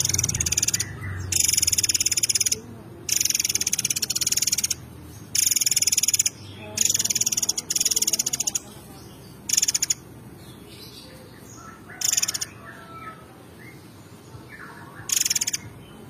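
Caged murai air mancur songbird singing a run of very fast, high-pitched trilled phrases, each about a second long, separated by short pauses. The pauses grow longer in the second half.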